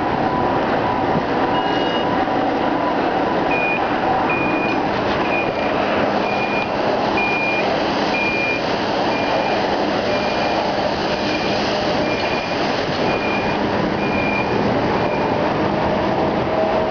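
A vehicle's reversing alarm beeping about once a second, starting a few seconds in and stopping shortly before the end, over a steady noise of the moving bicycle ride and busy yard traffic.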